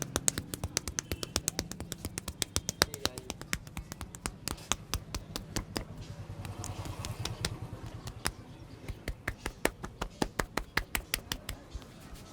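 Rapid percussive tapping of a head massage: sharp taps several times a second, thinning out for a couple of seconds in the middle and then picking up again.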